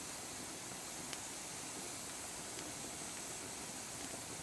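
Wood campfire burning: a steady hiss with a couple of faint crackles.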